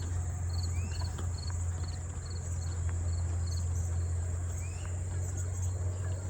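Insects singing: a steady high-pitched drone with a row of short chirps repeating about twice a second, over a steady low rumble. A short rising call sounds twice, about a second in and again near the end.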